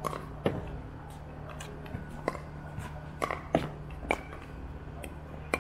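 Pickleball paddles and ball hitting during play: about half a dozen sharp pops at irregular intervals, each with a short ring.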